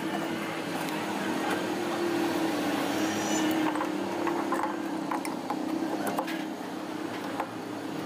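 A steady motor hum, with scattered light metallic clicks and taps as a motorcycle cylinder barrel is handled and slid down over its studs.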